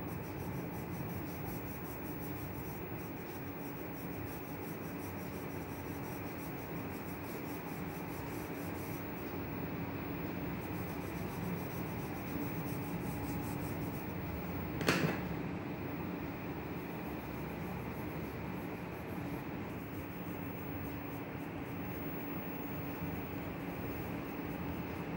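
Graphite pencil shading on sketchbook paper: continuous rubbing strokes over a constant hum, with a single sharp click about fifteen seconds in.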